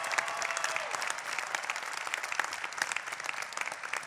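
A large crowd applauding, many hands clapping at once, thinning slightly near the end.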